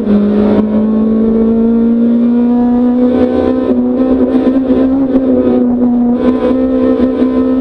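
Racing car engine at full throttle, heard from inside the cabin, pulling hard at high revs as the car accelerates. A gearshift comes right at the start, where the pitch drops sharply, and then the pitch creeps up as the engine climbs through the gear.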